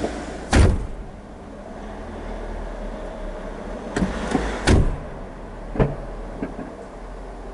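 The Mazda MX-5's driver door swung shut with a solid thump about halfway through, after a few lighter knocks and followed by a couple of small clicks. An equally heavy thump comes about half a second in, over a steady low hum.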